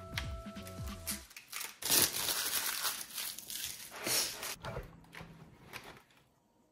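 Plastic packaging film crinkling and tearing loosely as it is pulled off a tray of clear plastic keycaps, loudest about two seconds in and again about four seconds in. Background music plays for the first second or so.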